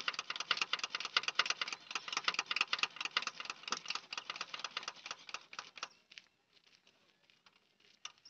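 Rapid, irregular pattering of diesel fuel dripping and splashing from the tractor's fuel filter into a bucket of drained oil. It stops about six seconds in.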